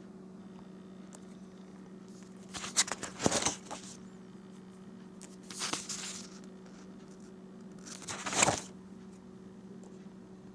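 Paper pages of a spiral-bound booklet being turned and handled: three bursts of paper rustling, the last the loudest, over a steady low hum.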